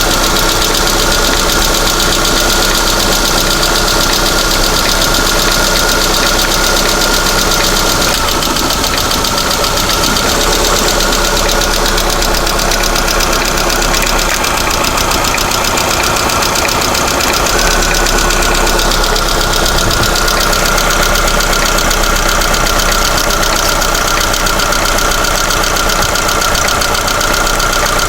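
Lada Vesta's 1.6-litre engine running steadily with a rapid ticking knock from its hydraulic valve lifters, the sign of worn or failing lifters.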